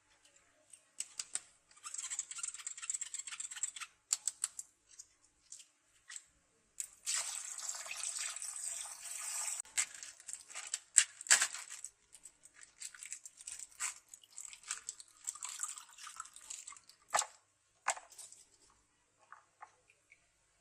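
Plastic packaging crinkling and being torn open by hand, in several spells of crackly rustling, with scattered sharp clicks and taps.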